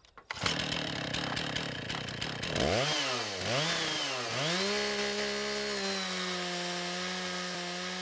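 Two-stroke chainsaw mounted in a chainsaw mill: it idles, is revved up and down three times, then is held at full throttle while ripping along a log, its pitch stepping down slightly about six seconds in.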